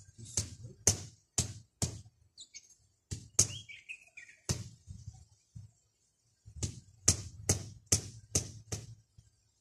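Sharp taps of bricks being knocked down into place while setting a brick edging: a run of four about two a second, a few scattered taps, then a run of six more. A bird chirps once briefly in the middle.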